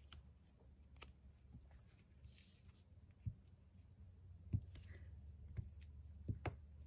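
Faint, scattered taps and clicks of paper and tape being handled and pressed onto a page lying on a cutting mat, with a brief soft rustle about two and a half seconds in, over a low steady hum.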